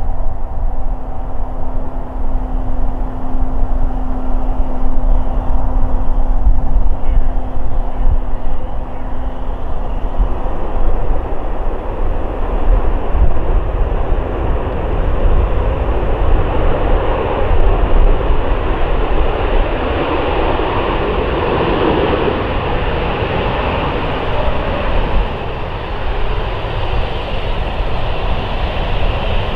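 Jet engine noise of a Boeing 737-700 with CFM56-7B engines landing and rolling out along the runway. A steady whine runs through the first third over a deep rumble, then a broad rushing swell builds in the middle and eases toward the end as the jet slows.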